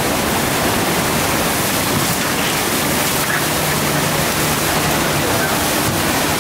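FlowRider sheet-wave machine: a thin sheet of pumped water rushing steadily up the padded riding surface, a loud even roar of water.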